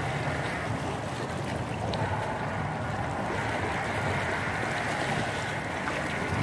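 Small waves lapping and washing over shoreline rocks, a steady wash of water.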